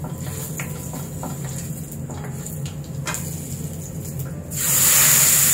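Whole spices frying in hot oil in a steel kadai, with light clicks of a spatula against the pan. About four and a half seconds in, a loud hiss starts suddenly as the onion-tomato paste is poured into the hot oil, then slowly eases.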